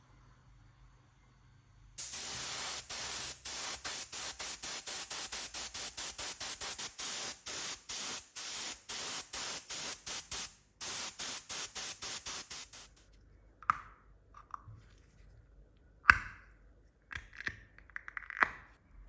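A hissing spray in rapid short bursts, about four a second, starting about two seconds in and stopping suddenly after some eleven seconds. A few small clicks and taps follow near the end.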